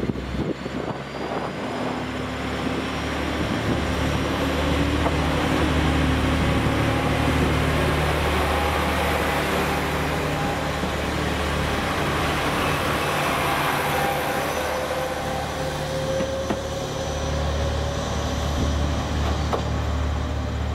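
KiRoShi 47 diesel railcars pulling away and passing close by. The diesel engines give a steady low drone with a note that rises slowly as the train gathers speed, over a wash of wheel and rail noise.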